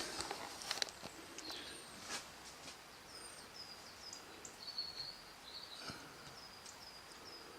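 Faint bird chirps: a series of short, high, quick notes repeated every second or so over a quiet background, with a few soft clicks.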